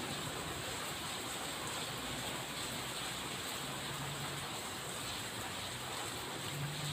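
Steady background hiss of open-air ambience, with a faint low engine-like hum passing briefly about halfway through and again near the end.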